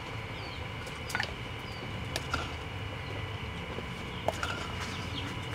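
A wooden ladle scooping liquid chili sauce from a wooden mortar and pouring it into a ceramic bowl, giving scattered light clicks and taps. Behind it is a steady background hum with a few faint bird chirps.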